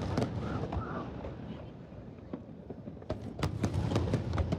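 Fireworks going off: a few sharp bangs at the start, then a quick cluster of bangs and crackles from about three seconds in, over a steady low background rumble.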